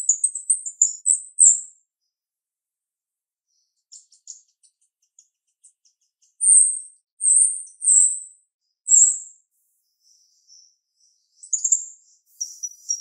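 Female red-winged starling (jalak rio-rio) calling in a sharp, very high-pitched voice: a quick burst of chatter at the start, then four loud separate whistled notes about a second apart, and a high trill starting near the end.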